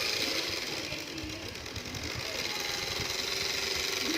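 Diesel locomotive engine idling as it warms up, a steady running sound with fast low knocking.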